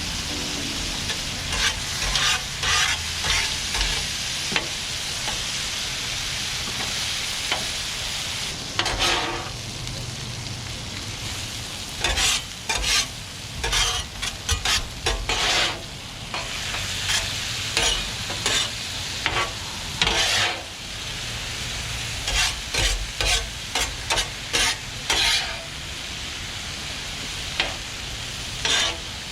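Food frying and sizzling on a Blackstone flat-top griddle, a steady hiss, with repeated bursts of a utensil scraping and clattering against the griddle top.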